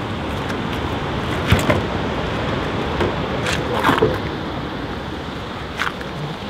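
Steady hiss of rain falling, with a few sharp knocks and clatters of plastic fishing-kayak gear being handled, about one and a half seconds in, twice around four seconds, and once near the end.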